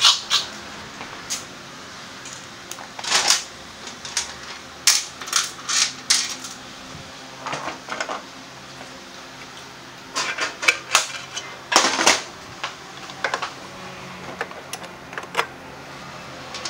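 Metal tools and parts being handled on a steel work lift: a series of irregular sharp clinks, clacks and knocks, some in quick clusters.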